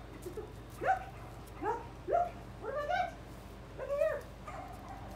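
A tricolour hound barking in a run of about five yelping calls, each rising then falling in pitch, spaced less than a second apart.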